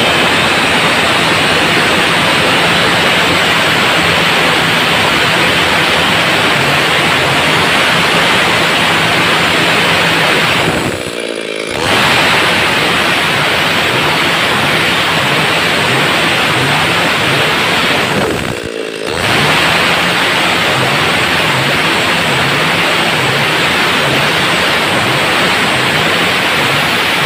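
Stihl MS 382 two-stroke chainsaw running at full throttle, rip-cutting lengthwise along a heavy wooden beam. Twice it briefly drops off and then revs back up.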